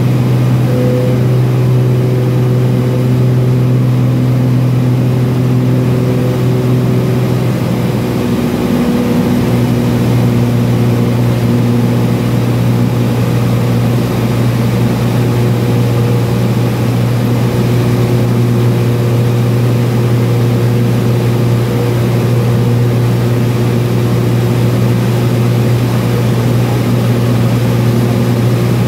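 Cessna U206F's six-cylinder Continental IO-520 engine and propeller running steadily at high power in the takeoff climb, heard inside the cabin. The engine tone shifts briefly about eight or nine seconds in.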